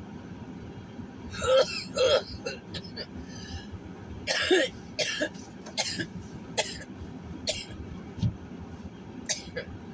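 A person coughing and clearing their throat in a series of hoarse bursts: two strong coughs about a second and a half in, another around four and a half seconds, then several shorter ones. Underneath runs the steady low hum of a moving car's cabin.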